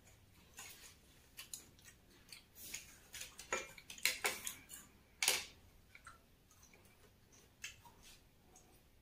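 Eating sounds: bites and chewing of crunchy bread pizza, heard as scattered short sharp crunches and clicks with no steady rhythm, the loudest a few about four and five seconds in.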